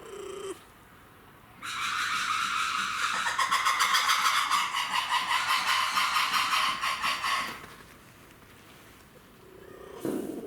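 Red ruffed lemur calling: a loud, harsh, rapidly pulsing cry that starts a couple of seconds in and lasts about six seconds before breaking off. A brief lower call follows near the end.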